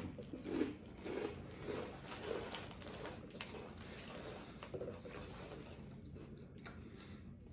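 A person chewing food close to the microphone, with soft crunching and a steady rhythm of chews.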